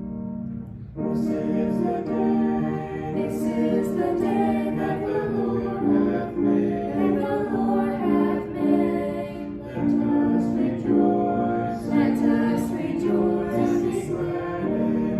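A choir singing a hymn, coming in about a second in after a keyboard introduction.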